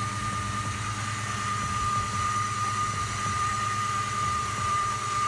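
2000 Ford Mustang GT's 4.6-litre V8 idling, with a steady, high-pitched awful whining noise from the accessory belt drive over the low engine hum. The owner traces the whine to a failing idler pulley.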